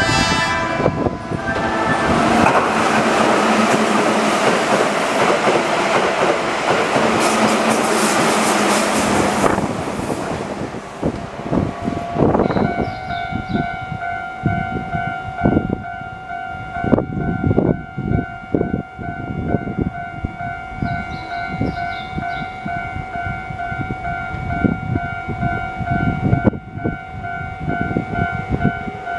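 Keihan electric train passing close by, a loud rush of wheels and motors for about ten seconds. After a short lull, a level-crossing warning bell dings steadily, over sharp clacks of wheels on rail joints as another train approaches.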